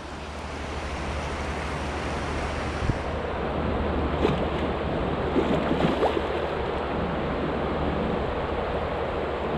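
Steady rushing noise of flowing river water and wind on the microphone, with a few faint, short squeaks in the middle.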